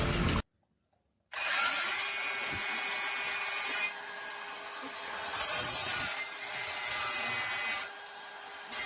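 A power tool starting up and running with a steady motor tone under a rough, grinding noise that gets quieter and louder again a few times, then drops away near the end.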